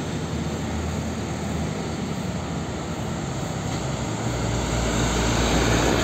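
Isuzu Giga tanker truck driving past on a street amid traffic, its diesel engine and tyres running steadily. The low engine sound grows louder about four seconds in as the truck comes close alongside.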